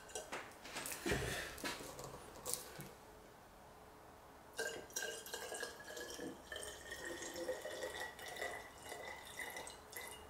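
Turpentine pouring in a thin trickle and drips from a plastic bottle into a small glass bottle. It pauses about three seconds in, then resumes with a thin tone that rises slowly.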